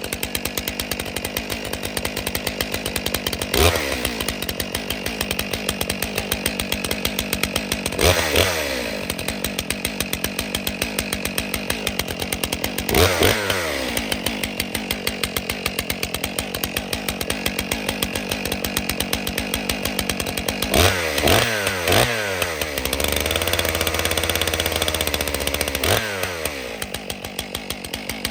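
Stihl MS661 C two-stroke chainsaw engine running at idle just after a cold start. The throttle is blipped several times, each rev falling quickly back to a lumpy idle, with a quick run of three blips about two-thirds of the way through.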